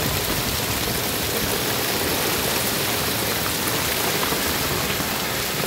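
Heavy hail pelting paving, gravel and plastic tarpaulins: a dense, steady hiss of countless small impacts.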